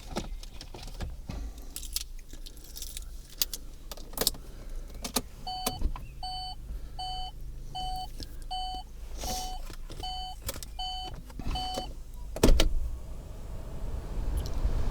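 A car's electronic warning beeper sounds about nine short, evenly spaced beeps, roughly one every three quarters of a second, starting about five seconds in. Scattered clicks and knocks of handling run around it.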